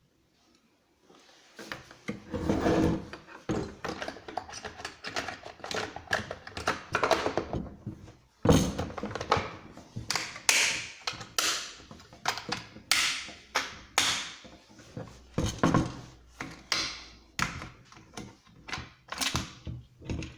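Objects being handled and set down on a hard surface: an irregular run of knocks, thunks and rustles, with the sharpest knock about eight and a half seconds in.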